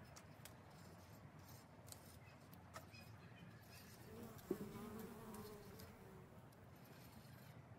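Quiet garden background with a bee buzzing past for about two seconds midway, and a few faint clicks from tomato leaves being stripped off.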